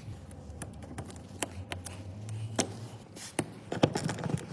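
Scattered light clicks and taps at uneven intervals, as of hands handling tools and metal parts, over a faint low hum.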